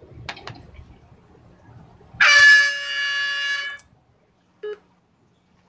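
A single blast of a basketball-arena timeout horn, played as a sound effect. It is a loud, steady, buzzy tone lasting about a second and a half, and it starts about two seconds in. A brief short blip follows about a second after it stops.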